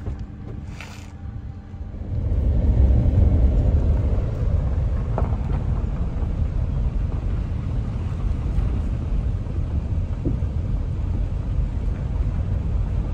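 Small car pulling away and driving: a quiet steady low hum for the first couple of seconds, then a loud low road rumble that holds steady as it moves.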